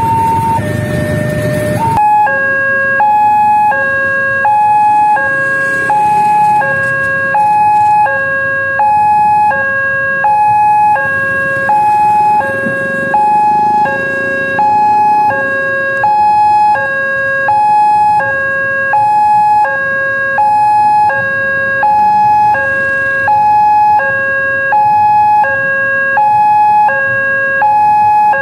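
Indonesian railway level-crossing warning alarm sounding: an electronic two-note signal, high and low notes alternating evenly, each held about two-thirds of a second, the warning that a train is approaching and the road is closed. About two seconds in, a slower alarm with heavier engine rumble cuts to this faster one, with idling traffic underneath.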